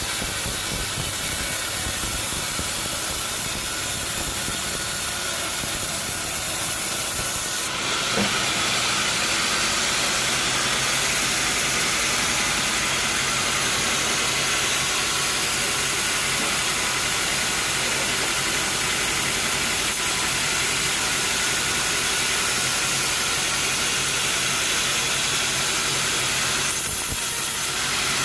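Sawmill saw cutting timber: a steady hissing sawing noise over a motor hum. It grows louder about eight seconds in and eases briefly near the end.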